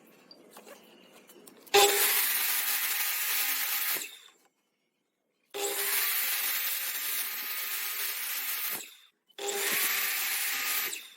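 An electric power tool working wood, in three stretches of steady hum under a hiss that each start and stop abruptly, the first about two seconds in.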